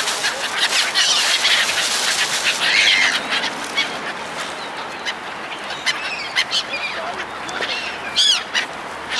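A flock of seagulls calling, many cries overlapping at first, then thinning out, with a louder burst of calls near the end.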